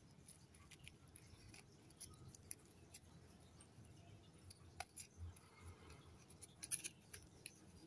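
Near silence with faint small clicks and rustles of a thin plastic bottle base being handled as a paper-towel wick is pushed through a small hole in it, a few clicks a little louder past the middle.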